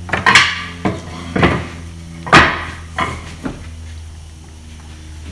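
About six sharp knocks, irregularly spaced roughly half a second apart over the first three and a half seconds, the loudest about two and a half seconds in, over a steady low hum.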